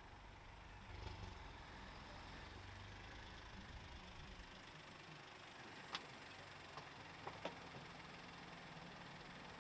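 Faint car engine running low, swelling briefly about a second in, then its rumble dies away about four and a half seconds in. A few sharp clicks follow.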